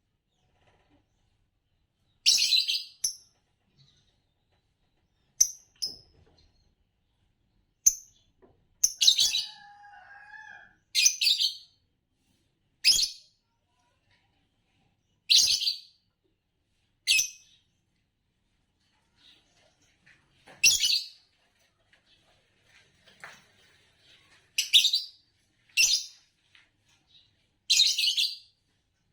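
Green Fischer's lovebirds giving short, sharp, high chirps in separate bursts every couple of seconds, with quiet gaps between them.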